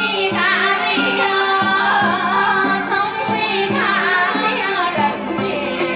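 Women singing a Vietnamese traditional folk song over live traditional instruments, with a steady low beat underneath.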